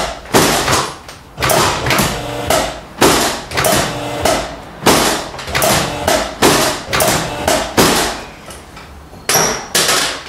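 Sharp, hammer-like knocking strikes repeating about one to two times a second, each with a short ring: percussive chiropractic work on a tight sacrum.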